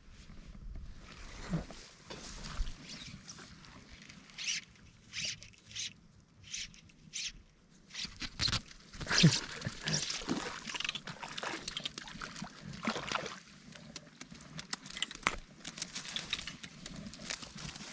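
Short swishing rustles, one or two a second, of fly line being stripped in by hand and of tall streamside grass, while a hooked brook trout is played to the net. From about halfway through the rustling gets denser and louder, with knocks as the rod and net are handled.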